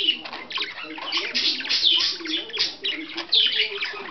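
Budgerigar chattering: a busy run of quick chirps and short falling squeaky notes, with no pauses.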